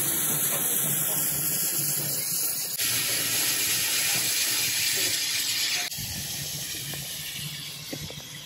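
Steady hiss of escaping steam from a standing GWR 6400-class pannier tank steam locomotive, dropping to a lower level about six seconds in.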